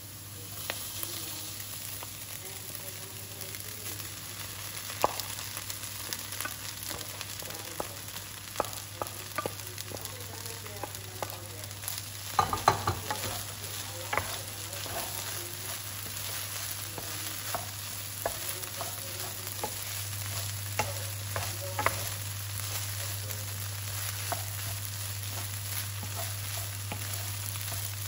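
Diced onions sizzling in oil in a nonstick frying pan while a wooden spoon scrapes and knocks against the pan. About halfway through comes a cluster of louder knocks, after which cooked white rice is stir-fried in the pan with the spoon.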